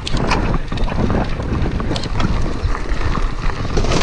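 Wind rushing over the microphone of a handlebar-mounted camera on a cross-country mountain bike riding over rough grass and dirt, with tyre noise and frequent clicks and rattles from the bike over the bumps.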